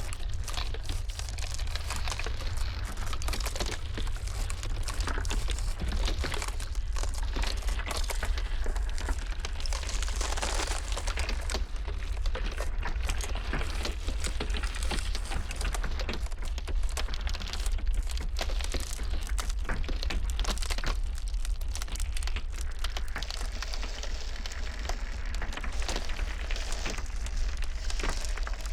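Ice cracking and crackling in a dense run of small sharp snaps, over a steady deep rumble of blizzard wind.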